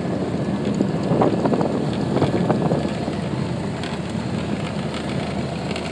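Piper Warrior's four-cylinder Lycoming engine running at low taxi power, heard from inside the cabin, with gusty wind buffeting the microphone for the first few seconds before it settles to a steadier drone.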